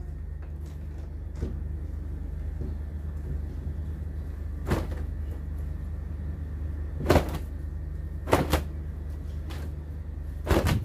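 Cloth work coverall being shaken out hard to beat out blown-in sand, snapping sharply several times, twice in quick pairs near the end, over a steady low rumble.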